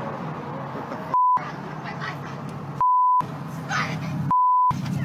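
Three short censor bleeps, single steady tones that blank out the speech, the second and third a little longer than the first, with faint talk and steady background noise between them.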